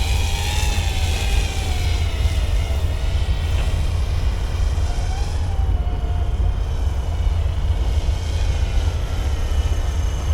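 Small RC helicopter tail-rotor propeller spinning: a thin whine that wavers and dips in pitch, over a steady low rumble.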